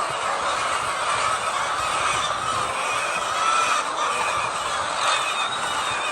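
Large flock of hens clucking and calling together, a steady, dense chatter of many birds at once.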